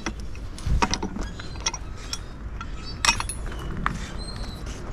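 Scrap metal pieces and tools clinking and knocking as they are handled, with two sharper clanks, about a second in and about three seconds in, and a few brief metallic rings.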